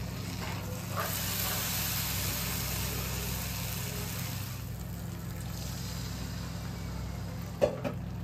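Thick curry paste sizzling in a stainless steel wok as it is stirred with a wooden spatula: a hiss that swells for a few seconds, over a steady low hum. A sharp knock near the end, from the spatula striking the wok.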